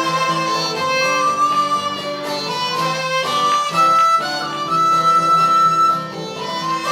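Live acoustic folk band playing an instrumental passage of an Irish folk tune: a sustained, sliding lead melody over guitar accompaniment.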